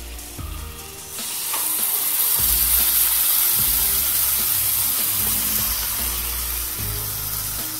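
Marinated chicken breast sizzling on a hot electric contact griddle. The hiss jumps up sharply about a second in as the heated top plate closes down onto the meat, then eases off slowly.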